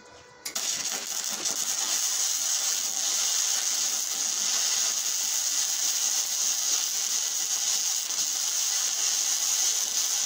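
Aluminum MIG weld run with a spool gun on a ProStar 140 welder. The arc strikes about half a second in and burns with a steady crackling hiss.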